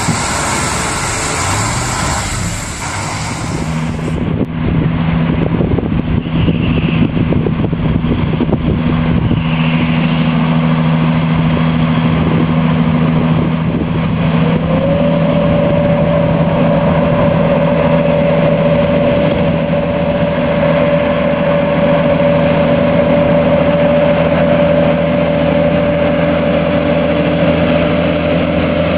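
Heavy truck engine running steadily, a low drone. About fifteen seconds in, a higher whine rises and then holds steady.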